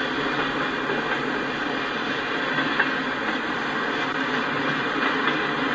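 Freight train tank cars rolling past, a steady rumble and hiss of steel wheels on the rails.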